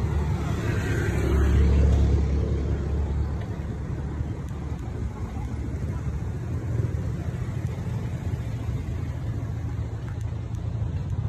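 Road traffic noise from cars and motorbikes, with a low rumble that swells and is loudest from about one to three seconds in.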